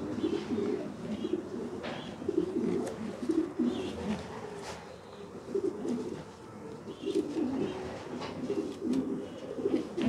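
Racing homer pigeons cooing in a loft, several coos overlapping throughout, with a few light clicks.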